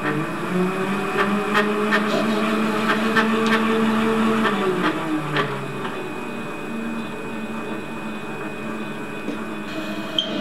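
Bernardo Profi 400 V metal lathe running, a steady gear-and-motor whine with irregular ticks, as a parting tool cuts into the spinning bar.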